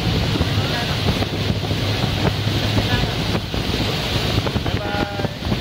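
Motorboat engine running steadily while the boat travels along a canal, with wind buffeting the microphone.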